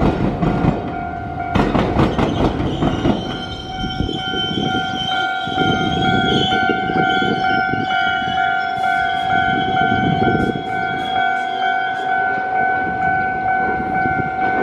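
Train wheels clattering over a rail diamond crossing where a tram line crosses a railway, a rapid run of sharp clacks in the first three seconds, followed by the train rumbling on. A Japanese level-crossing warning alarm keeps up a steady pulsing two-tone ding throughout.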